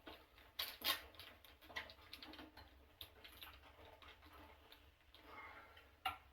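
Scattered light clicks and taps of small parts and a hand tool being handled while wiring is refitted in an electric water heater.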